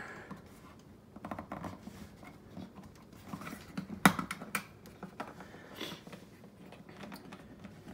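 Small plastic clicks and light rattling from a Bosch dishwasher's detergent dispenser door being handled and pried off by hand, with one sharp click about four seconds in.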